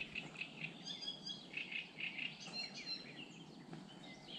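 Wild songbirds singing, many short chirping notes and phrases overlapping, over a faint steady background noise.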